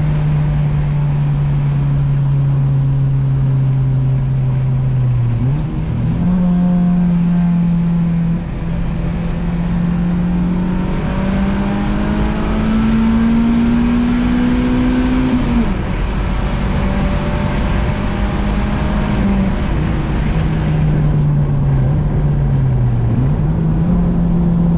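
Honda H-series four-cylinder engine, heard from inside the car while driving over steady road and wind noise. The engine note climbs steadily for about five seconds under acceleration, then drops sharply, holds, and sinks as the car eases off before picking up again near the end.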